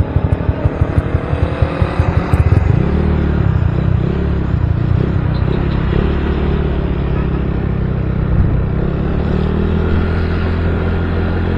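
Motorcycle engine running under way, with wind and road noise on the microphone. It pulses rapidly for the first two seconds or so, then settles into a steady note that rises near the end as the bike speeds up.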